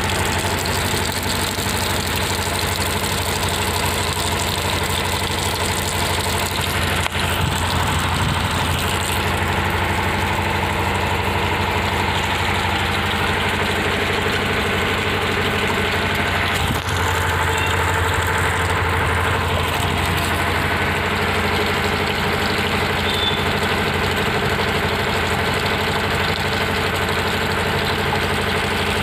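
Tap water pouring in a steady stream into a plastic bucket, a continuous rushing splash, with a steady low hum underneath.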